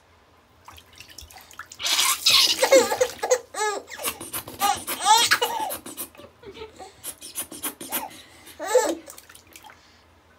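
A five-month-old baby laughing in several bursts of giggles and squeals, the loudest and breathiest about two seconds in, with a last short burst near the end.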